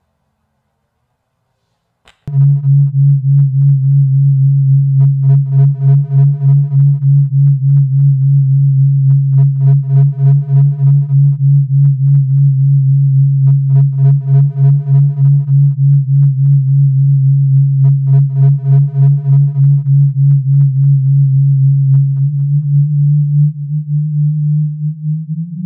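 Synthesized electronic drone: after a short silence, a loud low hum starts about two seconds in and pulses rapidly in level. A cluster of higher tones sounds over it for about two seconds at a time, roughly every four seconds.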